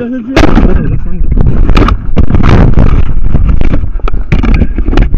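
Loud handling noise on a trail camera's built-in microphone: rubbing, rustling and repeated knocks as the camera is pulled down and carried off.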